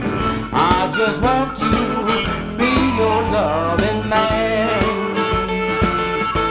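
Blues harmonica solo, the harp cupped against a handheld microphone, with wavering, bending notes over an electric guitar keeping a steady rhythm.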